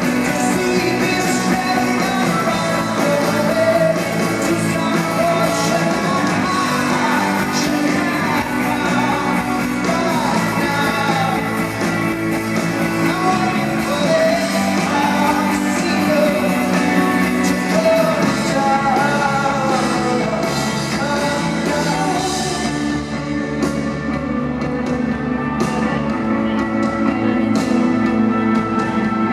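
Alternative rock band playing live with lead vocals, in the echo of a large arena.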